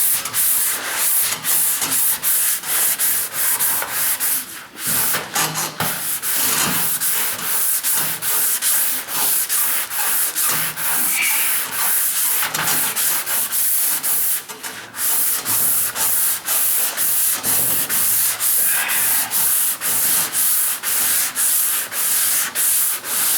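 Sandpaper on a hand sanding block rubbing over primer on a steel truck hood in steady back-and-forth strokes, a rasping hiss that pauses briefly twice.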